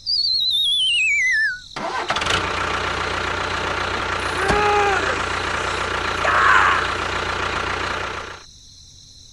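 A wavering whistle sliding down in pitch for under two seconds, then a steady engine-like running sound with a short rising-and-falling tone in the middle, which stops shortly before the end.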